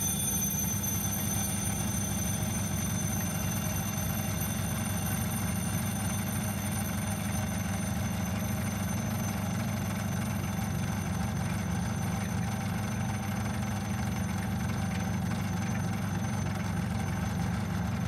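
Electric vacuum pump running with a steady, quite noisy drone, pumping the air out of a bell jar, while the electric bell inside keeps ringing continuously above it.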